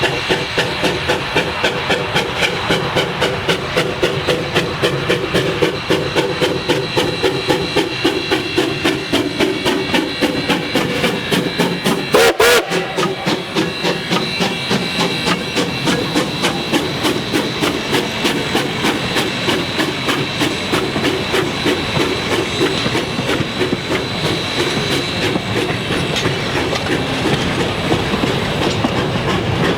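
Steam train hauled by ten-wheeler locomotive No. 152 running by, a fast steady rhythmic beat of exhaust and wheels on rail joints that keeps going throughout. A brief sharp crack about twelve seconds in.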